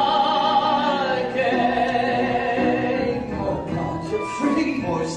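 Male voices singing long held notes in a musical-theatre number.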